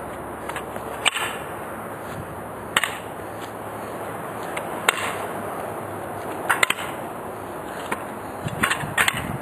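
A series of sharp cracks or slaps, about seven of them at uneven intervals, some in quick pairs near the end, over a steady background hiss.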